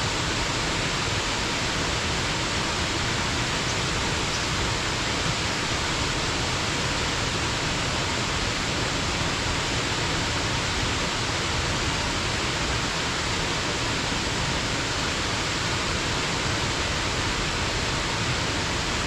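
Waterfall pouring into its pool, an even, unbroken rush of falling and splashing water.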